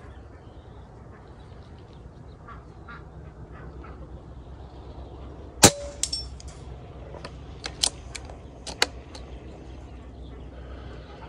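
A single air rifle shot about halfway through, followed a moment later by faint metallic clanks. Several sharp clicks come over the next few seconds, the loudest two about a second apart.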